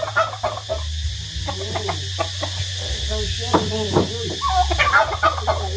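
Backyard flock of chickens and turkeys clucking and calling in short, scattered notes, over a steady low hum.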